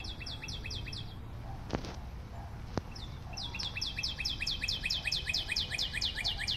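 A bird calling in a rapid, even series of short, high, falling chirps, about five a second. The series breaks off after about a second and starts again a little past the middle. Two sharp clicks sound in the gap.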